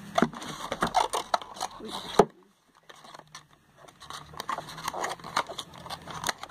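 Handling noise from unpacking: a glass perfume bottle and a cardboard box being moved and rummaged, with scrapes, clicks and rustling. A sharp knock about two seconds in, a short quiet spell, then more rummaging.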